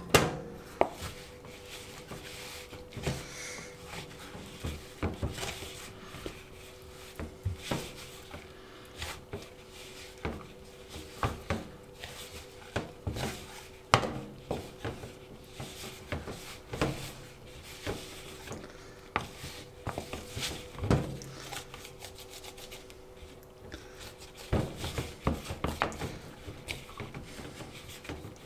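Bread dough being mixed in a bowl: irregular knocks and scraping of a utensil against the bowl, one or two a second.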